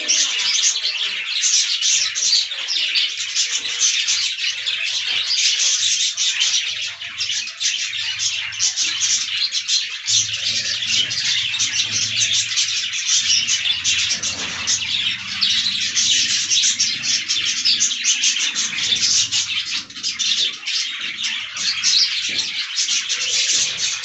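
A flock of budgerigars chattering and warbling continuously, many short overlapping chirps.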